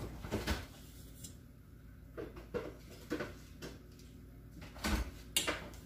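Kitchen handling noises: a handful of light knocks and clicks spaced irregularly, as dishes and utensils are moved about.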